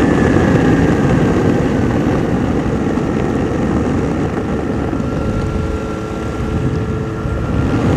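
Steady rush of airflow noise with an ultralight's two-stroke engine throttled back to idle during a power-off spin; a faint high whine slowly falls in pitch.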